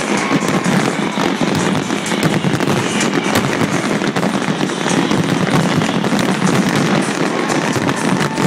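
Dense barrage of aerial fireworks, a continuous rapid stream of bangs and crackles with no pause.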